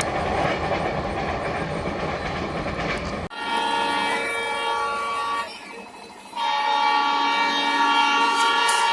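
Indian Railways train passing with a steady rumble and wheel clatter. About three seconds in, the sound changes abruptly to a locomotive's multi-tone horn, sounding in two long blasts with a short break between them.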